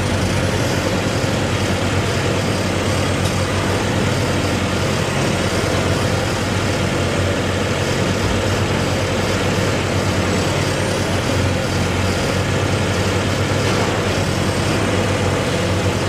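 Heavy engine running steadily, with a constant low hum and a faint high whine that rises and falls twice.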